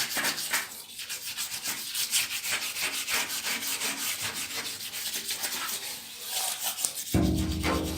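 Quick, rhythmic rubbing strokes, a rough abrasive sound repeating several times a second. Near the end a steady, low pitched tone with overtones comes in over it.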